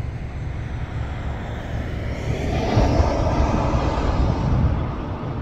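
A passing vehicle's noise swells to a peak about three seconds in and then eases off, over a steady low rumble.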